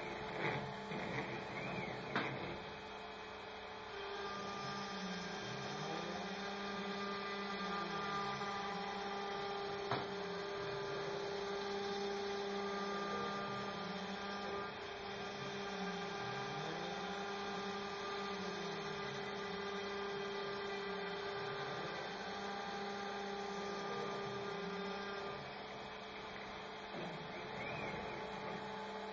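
ShopBot CNC router spindle with a 1/8 inch end mill running steadily while cutting its first pass through sheet stock: a steady machine hum with a lower tone that dips and rises about every two seconds, and a few knocks in the first couple of seconds.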